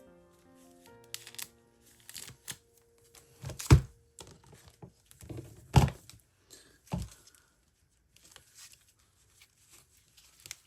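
Photocards and their packaging being handled: rustling, crinkling and tearing, with three sharp knocks about four, six and seven seconds in.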